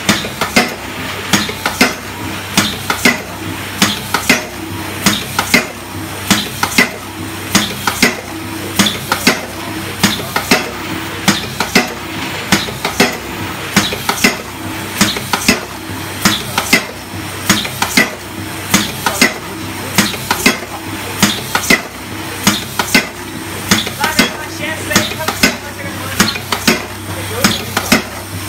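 Mechanical punch press on an aluminium foil container line, stamping in a steady rhythm of sharp metallic clanks, about two a second, over a constant motor hum.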